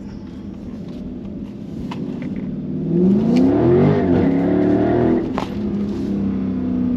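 Dodge Charger Widebody's V8 under hard throttle: about three seconds in the revs climb steeply and hold high for about two seconds. They then drop back at a sharp click and settle to a steady run.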